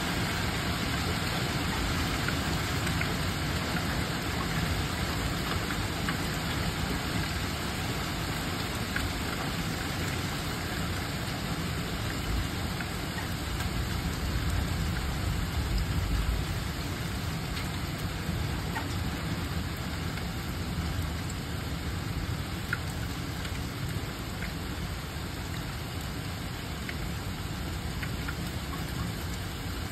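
Heavy rain mixed with hail pouring down steadily, with scattered sharper ticks of hailstones striking hard surfaces; it eases slightly toward the end.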